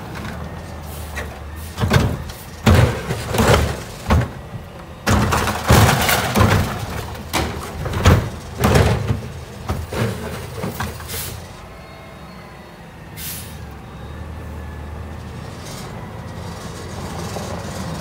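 Garbage truck pulling up and stopping, with a run of sharp air-brake hisses and clunks for most of the first ten seconds, then the engine running steadily.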